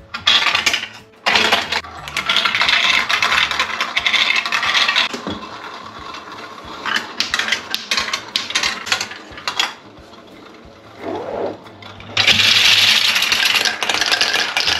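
Marbles rolling and clattering down plastic marble-run tracks and funnels, in dense bursts of rapid clicks, busiest near the end.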